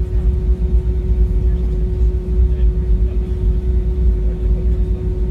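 Airliner cabin noise inside an Airbus A320: a steady, loud low rumble of jet engines and airflow with a constant hum above it.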